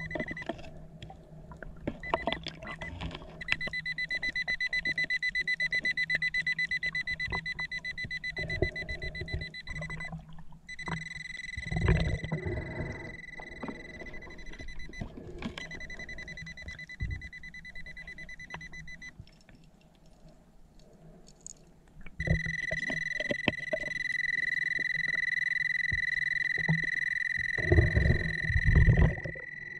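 Underwater metal detector, a Nokta Makro Pulse Dive, sounding a steady high alarm-like tone that switches on and off several times as the coil passes over a metal target. Muffled thumps of handling and movement in the water come in between, loudest about 12 seconds in and near the end.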